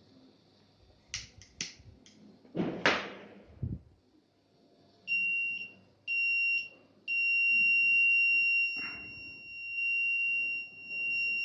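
A few sharp clicks and a short noisy burst, then the fire alarm's 5 V buzzer sounds a steady high-pitched tone: two short beeps, then one continuous tone. It is switched on by the Arduino's flame detector sensor sensing fire.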